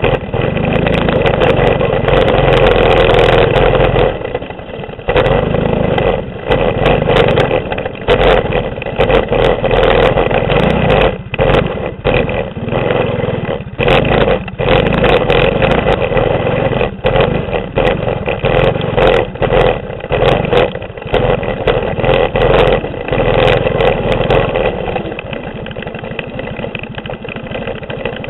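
Mini bike's 6.5 hp clone single-cylinder engine revving hard and dropping back over and over as the throttle is opened and closed on a dirt trail, with knocks and rattles from the bike over rough ground. It settles to a quieter, steadier running near the end.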